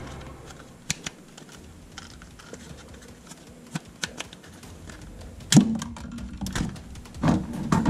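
Hard plastic toy guns clicking and clattering against each other as they are handled in a cardboard box, with a louder clack about five and a half seconds in and a few more near the end.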